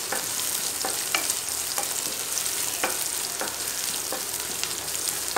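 Sliced onions and curry leaves sizzling in hot oil in a non-stick kadai while they are sautéed. A wooden spatula stirs them, with short irregular scrapes and taps on the pan about once a second over the steady hiss.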